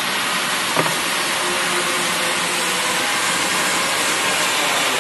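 Commercial vegetable slicing machine running: a steady mechanical whir and hiss, with a single short knock about a second in.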